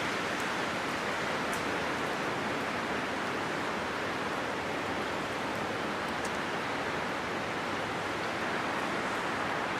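Wind rushing steadily through leaves and foliage, an even hiss with a few faint ticks.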